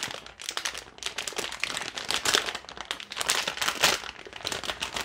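Anti-static plastic bag crinkling in the hands as the printer's LCD screen is unwrapped from it: a dense, irregular run of crackles.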